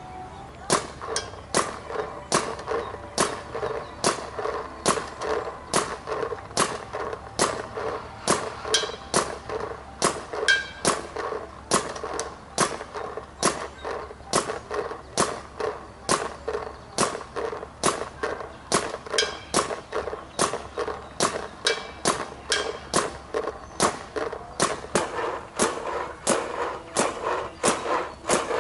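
Paintball marker firing shot after shot, a sharp pop about two to three times a second with no let-up.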